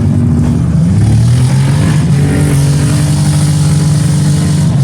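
Autocross race cars' engines revving on the track, pitch climbing about half a second in, holding high, then dropping near the end.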